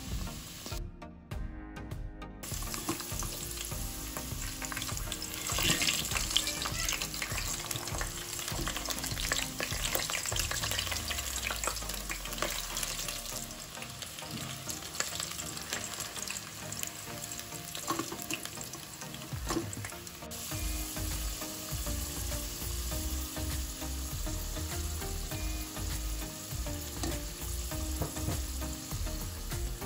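Peeled, hollowed-out potatoes sizzling as they fry in hot oil in a pot, with small clicks as tongs turn them.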